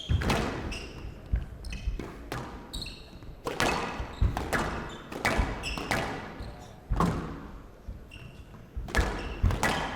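A squash rally: a quick, uneven series of sharp cracks as rackets strike the ball and it smacks into the court walls, each hit ringing briefly in the hall.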